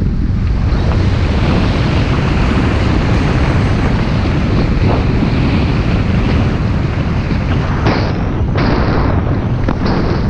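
Loud, steady wind rushing and buffeting over the camera's microphone from the speed of a speedriding descent on skis under a small wing.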